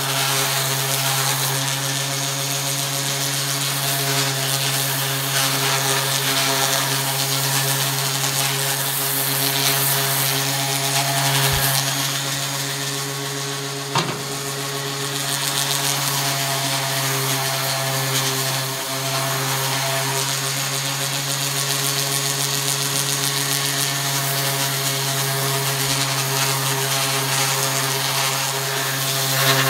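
DeWalt random orbit sander running steadily with 220-grit paper against a wooden axe handle, a final smoothing pass before oiling, with a steady motor hum under the rasp of the abrasive. A single sharp click sounds about halfway through.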